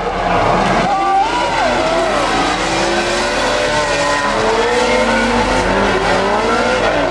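Several high-powered cars with engines revving up and down and tyres squealing as they slide.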